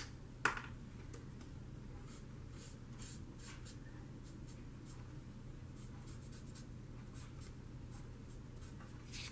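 A Spectrum Noir alcohol marker colouring on paper: faint, short scratchy strokes as the felt tip is worked over a flower centre. Near the start there are two sharp clicks about half a second apart, which fit the marker's cap being pulled off.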